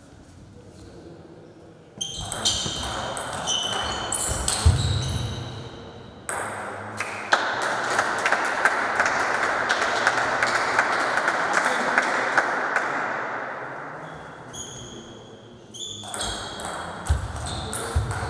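Table tennis ball pinging off the table and the rubber-faced paddles in quick irregular hits, about two seconds in and again near the end. In between comes several seconds of steady, louder noise full of small clicks.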